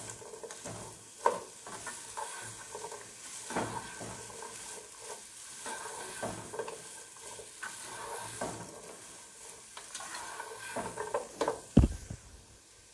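Capsicum, carrot and chicken sizzling in oil in a pot while a plastic spatula stirs them, scraping and clicking against the pot. A single sharp knock near the end is the loudest sound.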